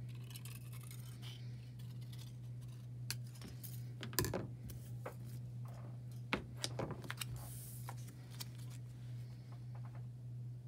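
Scissors snipping thin cellophane, then short clicks and a clatter as the metal scissors are set down on the table, followed by light crinkling of the cut plastic discs as they are handled, over a steady low hum.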